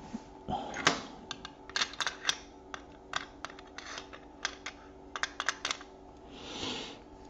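About twenty light, irregular clicks and taps of small metal watch parts and tweezers being handled on a bench mat, the loudest about a second in. A soft rustle follows near the end.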